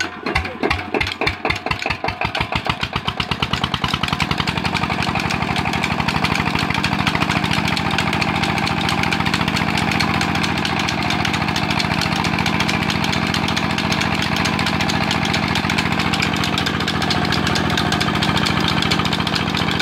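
Single-cylinder diesel engine of a belt-driven tube-well pump, just started: its firing strokes come slowly at first and quicken over the first few seconds, then it runs at a steady, fast, even beat.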